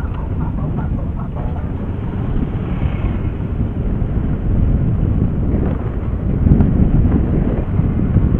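Honda XRE 300 motorcycle's single-cylinder engine running at low speed, with wind rumbling on the microphone. The sound swells a little about six and a half seconds in.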